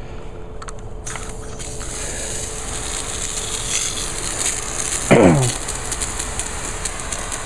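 Water hissing out of a gas pressure washer's wand nozzle, starting about a second in, with the trigger held open and the engine off to bleed air out of the pump and hoses. A short voice-like sound is heard about five seconds in.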